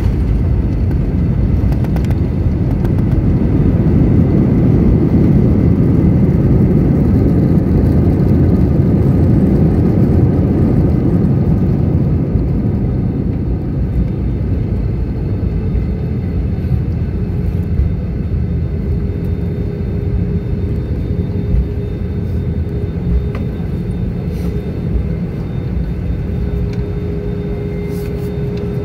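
Cabin noise of an Airbus A320 with CFM56-5B engines on its landing rollout: a loud rumble of engines and wheels on the runway, strongest early on and easing as the aircraft slows. A steady hum comes in about halfway through.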